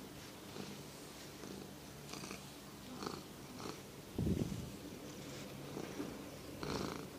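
Tabby cat purring steadily while being stroked, with brief rustles of fur against the hand and a louder bump of handling about four seconds in.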